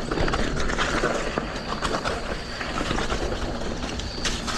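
Mountain bike riding down a wet dirt trail: tyres rolling over mud, roots and rocks with steady noise and many small clicks and rattles from the bike.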